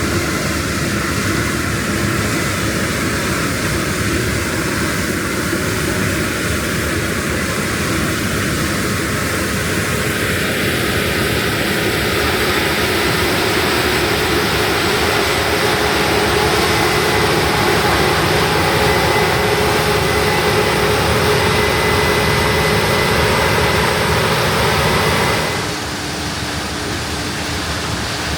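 Case IH Axial-Flow 9260 combine harvester running: a steady engine and machinery noise with a high whine. Near the end it drops suddenly to a quieter, even rushing sound.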